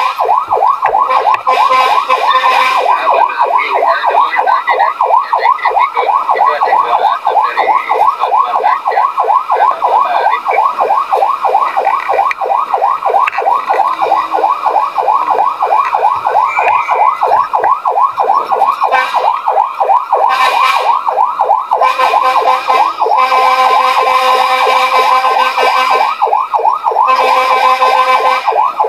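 Fire truck siren on a rapid yelp, a fast run of rising wails several a second, with steady horn blasts over it at the start and twice near the end.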